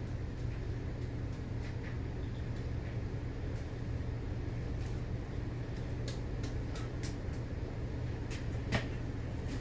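Emerson 52-inch Premium ceiling fan running steadily, with a low motor hum and the rush of moving air. A few light clicks are heard, the clearest near the end.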